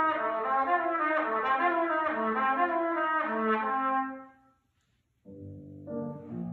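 Trumpet and piano playing classical music, the trumpet in a quick run of short notes. About four seconds in the music fades to a brief silence, then the piano comes back in.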